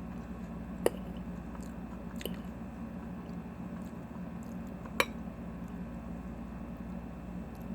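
Close-up chewing of a crunchy raw kale and cabbage salad, with two sharp clicks, one about a second in and one about five seconds in, over a steady low hum.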